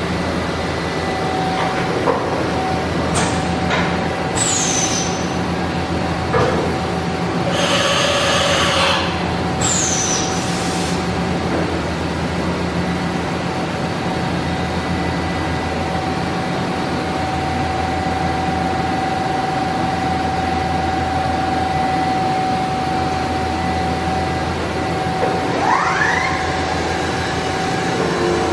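Steady hum of shop machinery with a constant whine, broken by a hiss lasting about a second and a half around eight seconds in and two short falling squeals.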